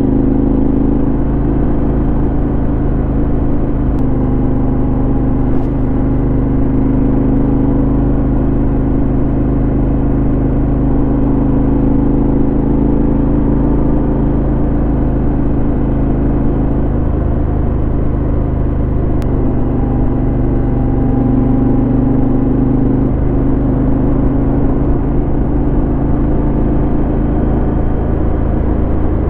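Yamaha XT1200Z Super Ténéré parallel-twin engine running through a Leovince SBK aftermarket exhaust, a steady deep exhaust note whose pitch shifts in steps a few times, around the middle and later on.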